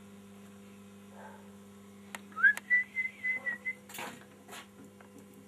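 A person whistling a short phrase about two seconds in: a quick upward slide into a high, slightly wavering held note with small breaks, lasting about a second and a half. A few light knocks and a steady low hum sit underneath.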